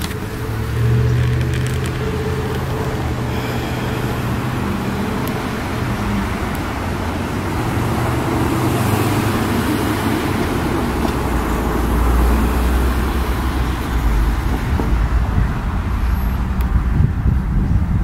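Road traffic: a motor vehicle's engine hum with the hiss of traffic, getting somewhat louder near the end.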